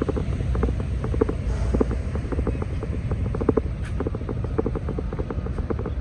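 Heavy rain with wind buffeting the microphone: a steady low rumble under many irregular, close taps of raindrops striking something near the microphone, several a second.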